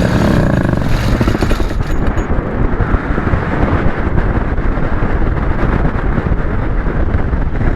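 Paramotor engine in flight sputtering and cutting out about two seconds in, a sudden in-flight engine failure, followed by steady wind rushing past the gliding pilot.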